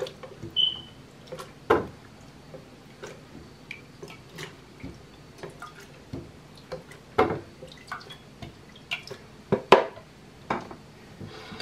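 Kitchen tongs lifting boiled red chiles out of a skillet of their cooking water and dropping them into a plastic blender jar: scattered drips, soft wet plops and clicks of the tongs against pan and jar.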